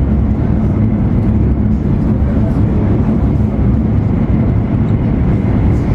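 E2 series Shinkansen running at high speed, heard from inside the passenger cabin: a steady, loud low rumble of wheels on rail and air rushing past the car body, with a faint constant hum.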